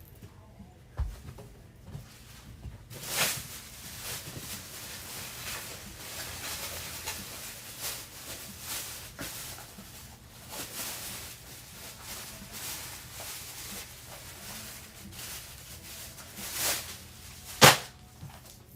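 Rustling and handling noises with scattered small clicks and a few knocks, and one sharp loud click near the end.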